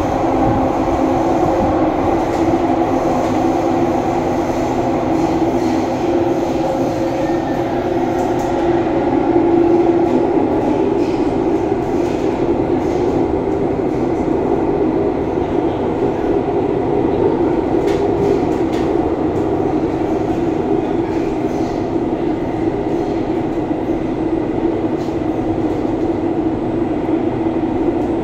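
Kawasaki-CRRC Qingdao Sifang CT251 metro train heard from inside the passenger car as it runs through a tunnel between stations. Its wheels and running gear make a steady, even rumble with a low hum over it.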